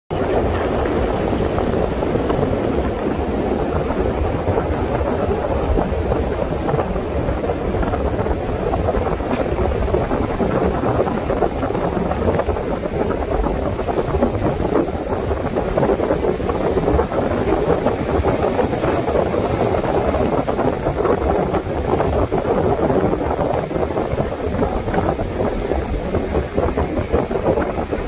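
Wind buffeting the microphone with a steady low rumble, over the continuous wash of sea waves breaking on a rocky shore.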